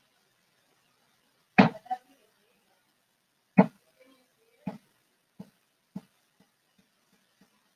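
A series of sharp knocks or thumps, the first two loudest, coming at shortening intervals and growing fainter toward the end.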